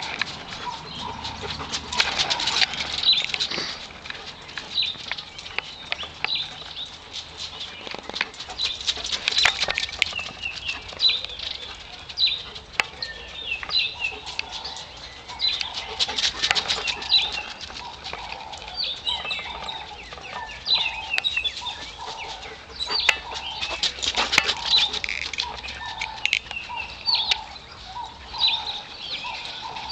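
Birds chirping and calling over and over in short high notes, with a lower run of repeated notes beneath them, broken by scattered sharp clicks and rustles.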